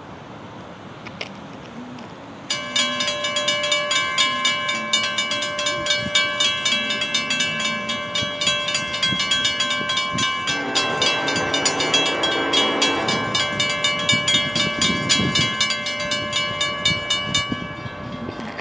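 Railroad crossing signals activating: two mechanical crossing bells, a WRRS and a WC Hayes, start ringing about two seconds in with rapid, evenly repeated strikes. An approaching locomotive's horn sounds over them for a few seconds about ten seconds in. The bells stop shortly before the end, once the gates are down.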